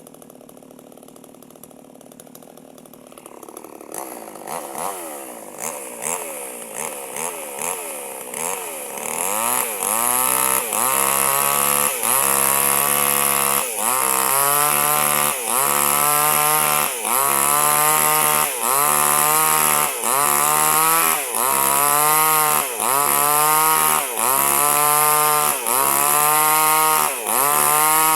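Two-stroke chainsaw idling faintly, then blipped up in short revs from about three seconds in. From about nine seconds in it runs loud at full throttle cutting durian wood, its pitch sagging and recovering a little more than once a second as the chain bites into the wood.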